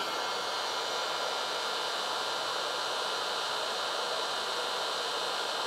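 Electric heat gun running steadily, its fan giving an even rush of hot air directed at a battery's temperature probe to trip the high-temperature charge protection.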